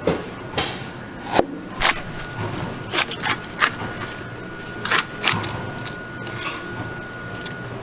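Kitchen knife cutting ginger and then a bundle of green onions on a plastic cutting board: about nine sharp, irregular knife strikes on the board, which stop a little past halfway.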